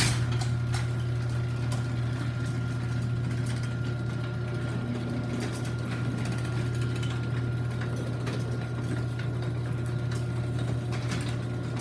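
Chain-drive garage door opener raising the door: the motor starts with a jolt and runs with a steady low hum, a faint high whine and light clicking from the chain, then stops near the end as the door reaches the top.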